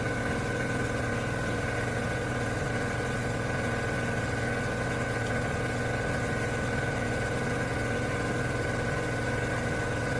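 Power grinder running steadily on the car's steel chassis with a constant high whine, cleaning off leftover old floor pan metal.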